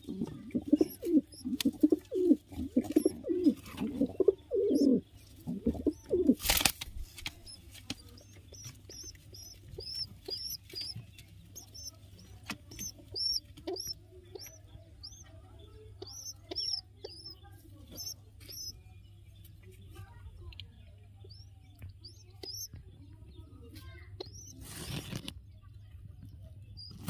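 Pigeons cooing low for the first few seconds, then a short burst of wing flapping. After that comes a long run of high, thin chirps at about two a second, with another flap of wings near the end.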